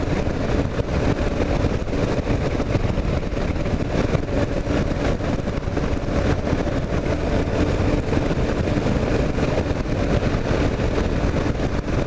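Kawasaki KLR 650's single-cylinder engine running steadily while riding at road speed, heard with wind and road rush on the bike-mounted camera's microphone.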